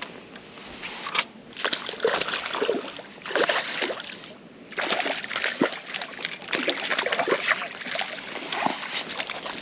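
A hooked bass splashing and thrashing at the water's surface beside the boat while it is being fought, in irregular bursts of splashes starting about a second in.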